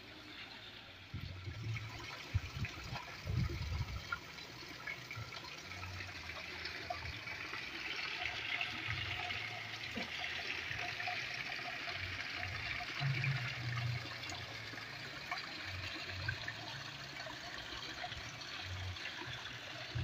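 Water from an artificial-rock waterfall feature spilling and trickling steadily into a fish pond, swelling a little midway, with a few low bumps in the first seconds and again later.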